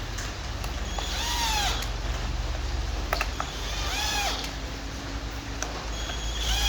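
A cat meowing three times, each meow rising then falling in pitch, over a steady low hum.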